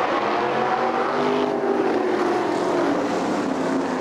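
A pack of winged sprint cars' V8 engines running hard at speed, their pitch dipping a little in the second half.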